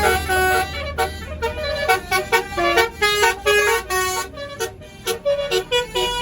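Basuri musical telolet horn on a tour bus playing a quick tune of short, stepped notes, with a few brief gaps between phrases.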